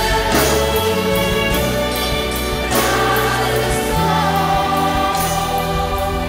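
A choir singing a religious hymn with instrumental accompaniment, in long held chords over a steady bass.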